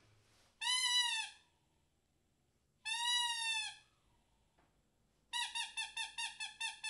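Rubber squeaky toy squeezed: two separate long squeaks, each rising then falling slightly in pitch, then a quick run of about eight short squeaks near the end.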